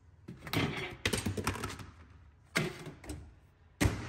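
Clicks and clunks of a plastic meal tray being set into a microwave oven, then the microwave door snapping shut, the loudest click just before the end.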